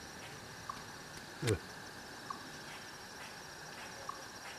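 Insects chirring steadily in the woods, with a short repeated chirp about every second and a half. A single sharp knock sounds about a second and a half in.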